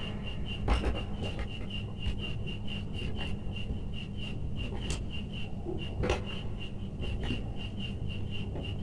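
Copper electrical wires being twisted together into one joint by hand and then with combination pliers: rubbing and scraping of the wire and plier jaws with a few small clicks. A steady high-pitched chirp pulses about four times a second underneath.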